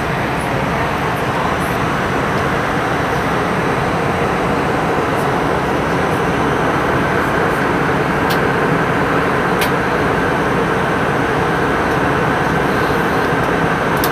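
Steady engine and airflow noise inside a jet airliner's cabin at cruise altitude. Two brief clicks come about eight and nine and a half seconds in.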